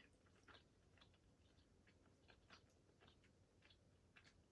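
Faint chewing and scattered small mouth clicks from someone eating the caramel off a salted caramel Twix finger.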